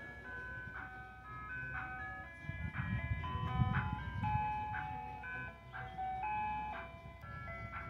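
Soft-serve ice cream truck's jingle playing: a simple electronic tune of clear single notes, with a low vehicle rumble swelling up in the middle.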